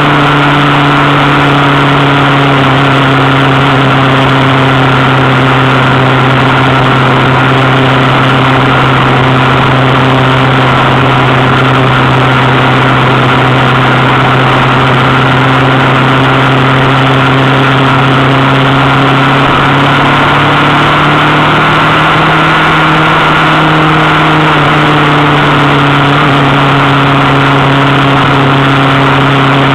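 Motorcycle engine at a steady cruise, heard from on board the moving bike over a constant rush of wind and road noise. A little past two-thirds of the way through, the engine note rises briefly, then settles back.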